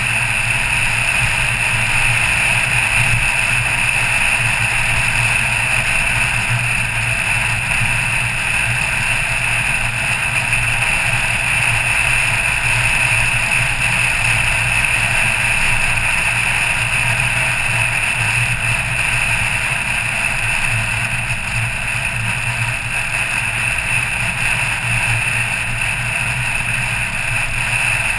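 Car cruising at an even speed: a steady engine hum with tyre and wind noise, with no revving or gear changes.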